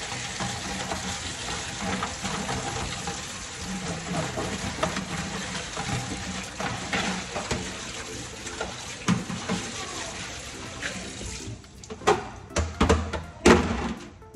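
Kitchen tap running into a sink while fish is being washed, a steady splashing. Several sharp knocks come near the end.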